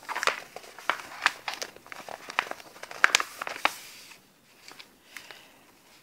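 A run of quick crinkling, rustling clicks for about four seconds, dying away after that.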